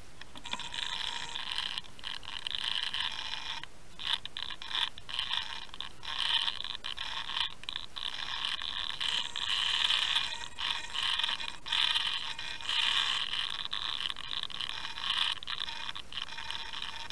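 Mechanical whirring and gear noise from a T-rex 450 electric RC helicopter, heard through its onboard camera's microphone. It is uneven in level and cuts out briefly several times.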